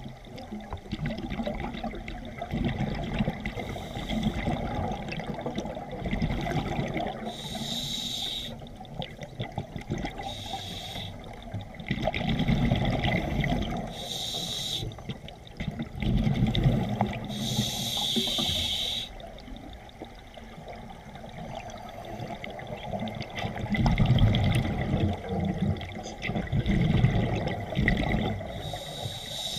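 Scuba diver breathing through a regulator underwater: about four short hissing inhalations alternating with longer bubbling exhalations.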